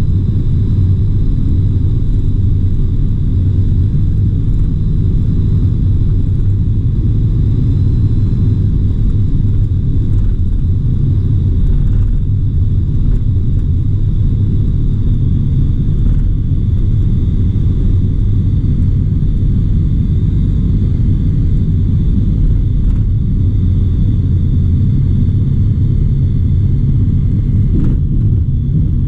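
Dynamic WT9 light aircraft's engine and propeller heard from inside the cockpit: a loud, steady low drone that holds even throughout, with a faint steady high whine above it.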